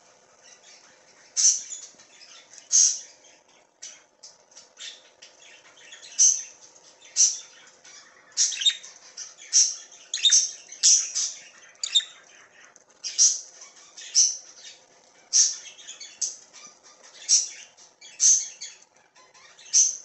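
Budgerigar chirping: short, sharp, high chirps repeated irregularly, about one or two a second.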